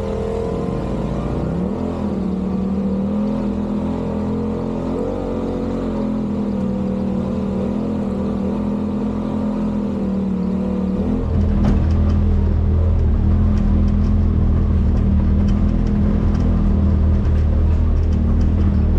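Side-by-side UTV engine running at a steady, slightly varying throttle. About eleven seconds in the sound gets louder and deeper, with a scatter of small clicks over it.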